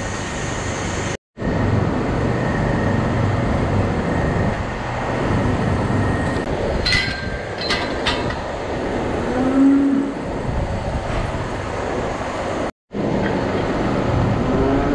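Steady rushing noise of large barn ventilation fans. About seven and eight seconds in come a couple of sharp, ringing metal clinks.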